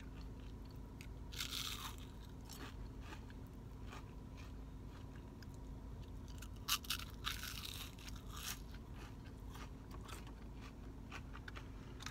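Biting into and chewing a crunchy battered onion ring close to the microphone: a crisp crunch about a second and a half in, a louder crunching bite around seven seconds, and soft chewing crackles between.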